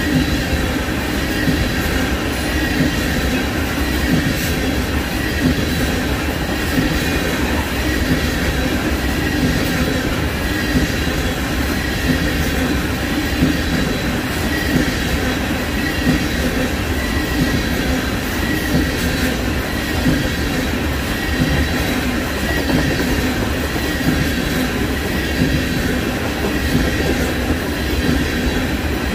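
Norfolk Southern freight train cars rolling past steadily: wheels running on the rails with a faint high squeal and light clicking over the rail joints.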